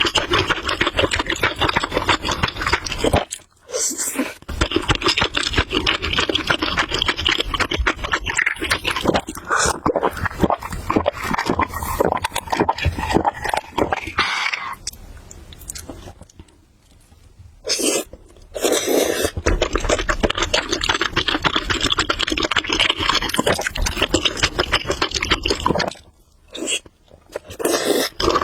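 Close-up mouth sounds of someone eating noodles, chewing in long stretches of rapid fine crackling with a few short pauses.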